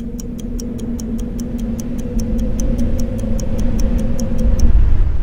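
Fast clock ticking, about five ticks a second, over a steady low hum and a deep rumble that grows louder. The ticking and the hum stop shortly before the end, leaving the rumble.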